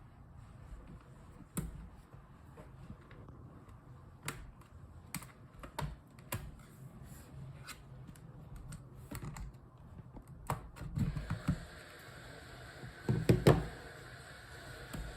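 Scattered sharp plastic clicks and taps from hands working on a laptop, with a louder cluster of knocks near the end. A steady hiss comes in about ten seconds in.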